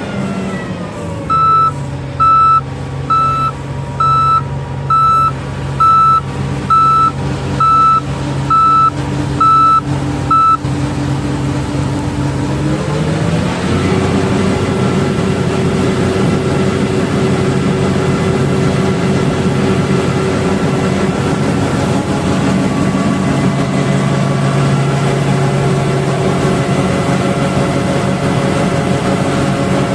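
John Deere W540i combine harvester's diesel engine dropping in revs, with a reversing alarm beeping eleven times, about once a second. About thirteen seconds in, the engine speeds up again and runs steadily at the higher speed.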